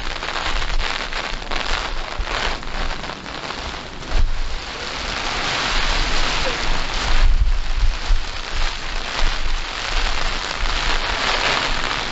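Heavy rain pelting down and drumming on an umbrella held just over the microphone, a dense hiss of close drops. Gusts of wind buffet the microphone with a low rumble, strongest a little past halfway.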